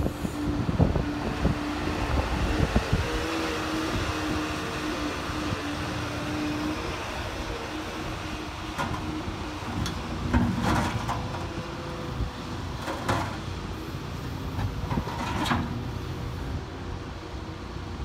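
Manitou MLT 840 telehandler's diesel engine running with a steady whine while the hydraulic boom lowers the bucket to the ground and lifts it again. A few short clatters come in the second half.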